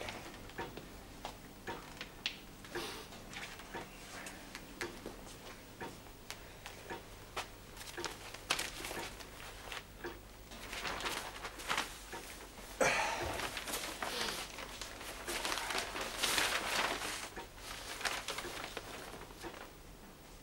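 Newspaper pages rustling as they are handled and turned, in short noisy stretches, the loudest starting suddenly about two-thirds of the way in. Faint scattered clicks and taps come between them.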